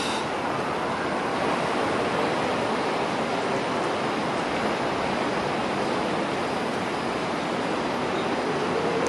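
Steady, even rushing noise of light rail and road traffic, with a Hong Kong Light Rail car rolling away along the track.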